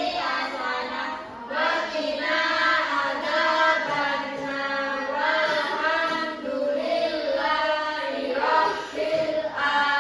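A class of children chanting a prayer together in unison, sung to a simple melody.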